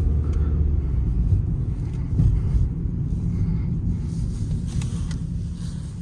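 Peugeot 308 heard from inside the cabin while driving: steady engine and tyre rumble, with a couple of brief soft bumps. No suspension knocking comes through, the sign that the new standard anti-roll-bar links have cured the knock the polyurethane links made.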